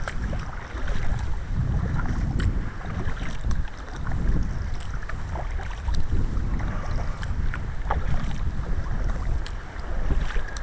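Water splashing and lapping around a sea kayak being paddled on a slight swell, with wind rumbling on the microphone.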